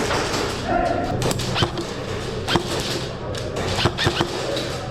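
Airsoft guns firing single shots, sharp pops at irregular spacing, roughly one a second, over a steady low hum.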